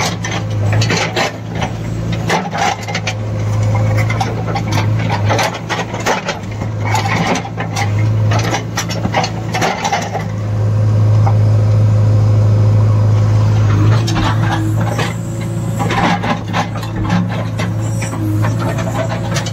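JCB 3DX backhoe loader's diesel engine running steadily while the steel backhoe bucket scrapes and drags through dry, stony soil, with repeated crunching and grating of gravel against the bucket. For a few seconds in the middle the scraping stops and only the engine drone is heard, louder, before the scraping starts again.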